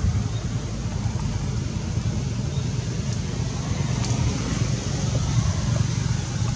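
A steady low rumble with a faint hiss above it, running evenly throughout.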